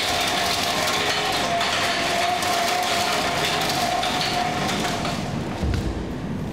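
Steady mechanical rumble and rattle from a wheeled metal bakery rack loaded with trays of dough balls, over a constant machine hum. A low thump comes near the end.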